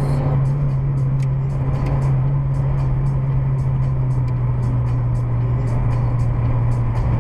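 Inside a car cruising on a highway: a steady low drone of engine and tyre noise, with faint quick ticking throughout.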